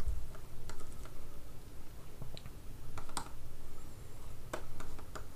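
Keys being pressed: light, irregular clicks about one or two a second, the loudest about three seconds in.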